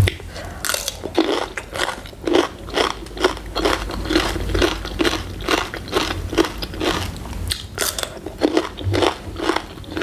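Close-up crunchy chewing of raw cucumber, one crisp crunch after another at about two to three a second.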